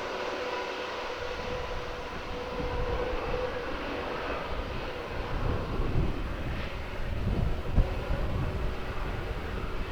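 Airbus A320's CFM56 jet engines running, a steady whine that fades after a few seconds over a low rumble that swells unevenly.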